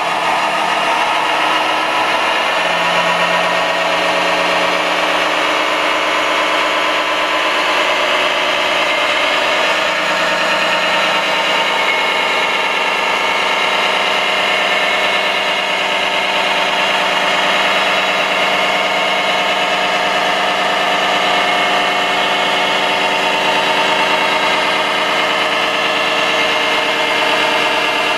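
Idling diesel engine sound played by an RC model construction rig's sound module: a steady, thin engine note with no deep bass that shifts slightly about ten seconds in.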